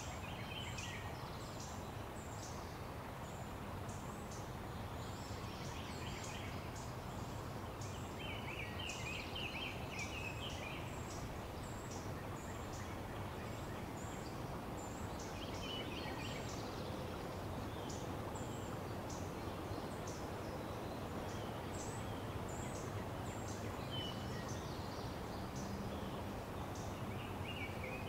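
Small birds calling with short, high chirps over and over, with a few brief trills, over a steady rushing background noise.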